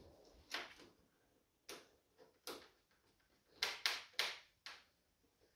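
Hand screwdriver driving a small screw into the plastic frame of an LCD TV: a few short, irregular clicks and ticks as the screw and driver tip turn and seat.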